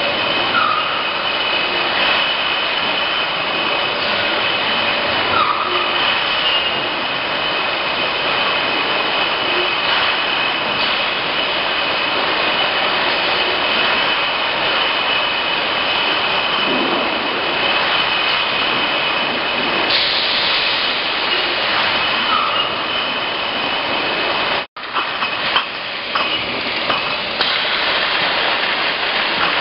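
Packaging-line machinery and conveyors running: a steady noise with a constant high whine over it, which drops out for an instant near the end.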